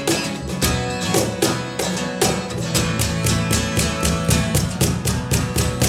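A live band playing an instrumental stretch of a song with no singing: strummed guitar over a steady beat.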